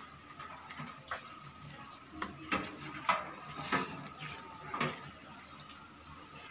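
Stems being snapped and pulled off wet colocasia (taro) leaves by hand: scattered faint snaps and leaf rustles, with light clinks of glass bangles.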